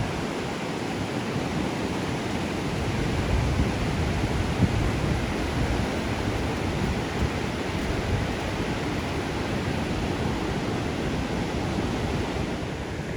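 Ocean surf washing on the beach as a steady rush, with wind buffeting the microphone in uneven low gusts.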